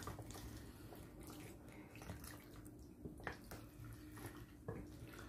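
Faint wet squelching of sauced macaroni being tossed and stirred with two wooden spoons in a glass bowl, with two soft knocks in the second half.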